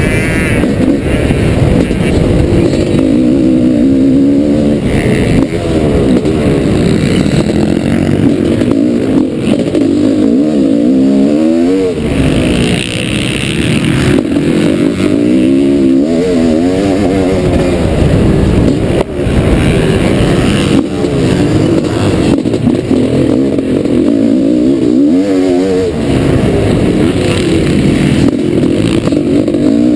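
1989 Honda CR500's two-stroke single-cylinder engine under hard riding, heard from on board the bike. The engine revs rise and fall again and again as the rider accelerates and backs off.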